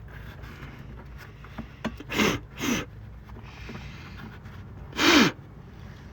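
A man's short, forceful breaths through the nose and mouth, three of them: two close together about two seconds in and a louder one about five seconds in, the later ones ending in a brief falling grunt.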